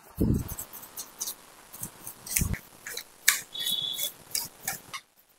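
Hand tools working over metal engine parts: a run of short, sharp scraping and scratching strokes, with two dull knocks and a brief high squeak about halfway through.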